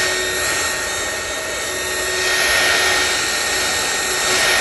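Small craft heat gun running steadily, its blower fan giving a steady whine over a high hiss, as it is swept over wet pigmented epoxy resin to blend the colours.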